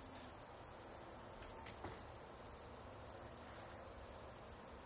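A steady, high-pitched insect trill, faint and unbroken, with a couple of faint clicks about two seconds in.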